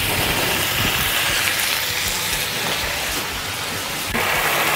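Soybean and ginger sauce sizzling and bubbling hard in a hot wok. It makes a steady hiss that grows a little louder near the end.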